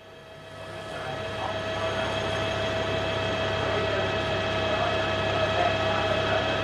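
Formula One car engines running at a steady, unchanging pitch over a broad rushing noise, fading in over the first two seconds.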